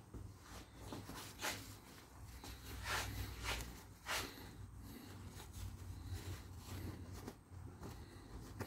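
Scattered light clicks and scrapes of saw parts being handled while the opened gear train is inspected, with the loudest cluster about three to four seconds in.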